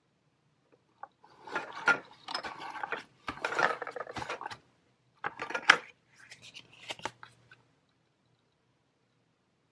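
Plastic toy play-set pieces being handled: rustling and clattering in two stretches of a few seconds each, with sharp clicks, the loudest near the middle.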